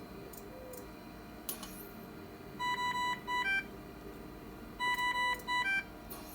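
Dräger Savina ventilator beeping: two identical groups of electronic tones about two seconds apart. Each group is three medium-pitched beeps followed by a higher one, and faint clicks come before them.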